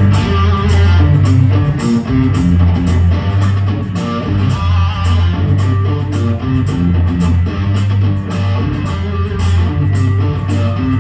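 Live rock band playing loudly: electric guitar riff over a bass guitar line, with a steady beat.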